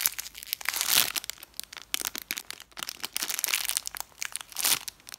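Thin clear plastic packaging crinkling in quick, uneven crackles as hands squeeze a foam squishy toy through the bag, loudest about a second in and again near the end.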